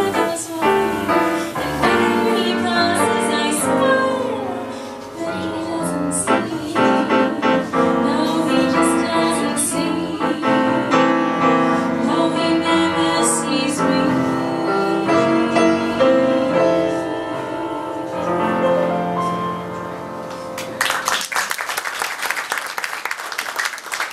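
Female vocalist singing a jazz standard with grand piano accompaniment as the song draws to its close. About three seconds before the end the music gives way to audience applause.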